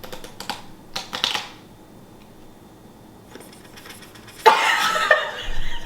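A deck of playing cards being handled and shuffled: quick runs of clicks at first, then a louder riffle about four and a half seconds in.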